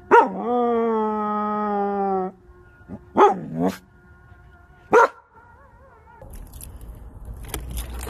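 A Samoyed gives one long, steady howl of about two seconds, then a few short barks about three and five seconds in. Near the end, clicking and rustling take over.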